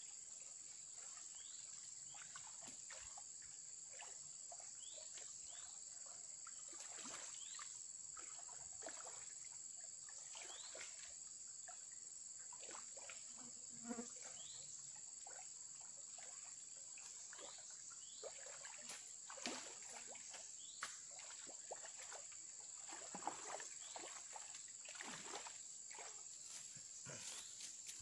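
Steady, high-pitched drone of insects, with scattered faint clicks and short chirps over it.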